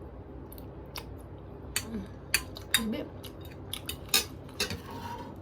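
Eating utensils clinking and scraping against a dish of spicy noodles while they are eaten: a string of sharp clinks at irregular intervals, the loudest about three and four seconds in.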